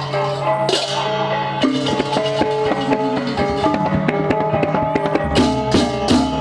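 Balinese gamelan music, the kind that accompanies an ogoh-ogoh parade: pitched metal keys and gongs ring in a running melody over drums. Cymbals clash once about a second in and in a quick run near the end.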